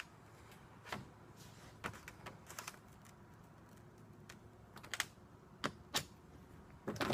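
Faint scattered clicks and light taps of a metal scribe on thin sheet metal as layout marks are made. They come singly or in quick pairs, the loudest near the end.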